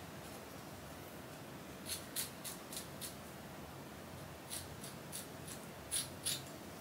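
Small scissors snipping through the lace ear tab of a lace-front wig: two runs of short, crisp snips, the first about two seconds in and the second, slightly louder, near the end.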